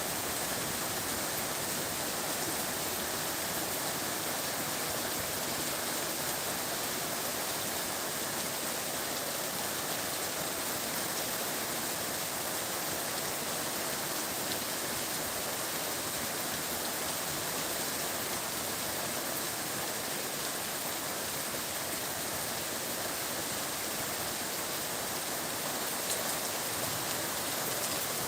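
Steady rain falling without a break, an even hiss.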